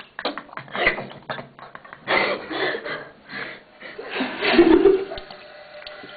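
A person's voice making wordless sounds, mixed with short knocks and rustles from the camera being handled close to the microphone; a louder, low voice sound comes a little after the middle.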